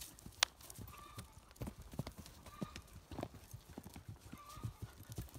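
Hoofbeats of a horse cantering over dry, hard-packed grass, a run of uneven thuds. There is one sharp click about half a second in.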